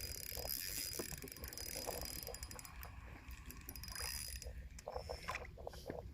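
Fishing reel being worked, its mechanism ratcheting in a run of irregular clicks with small knocks.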